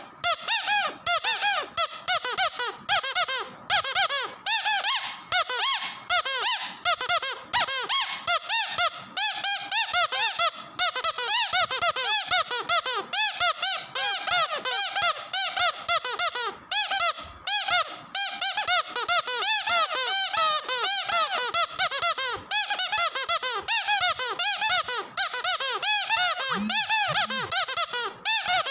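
Rubber squeaky dog toy squeezed over and over in quick succession, a rapid run of high, pitched squeaks, each bending in pitch, with only brief pauses.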